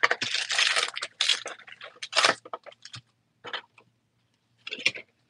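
Wrappers of 2023 Bowman baseball card packs crinkling as the packs are pulled out of the hobby box and stacked by hand: a long rustle at first, then a few shorter bursts.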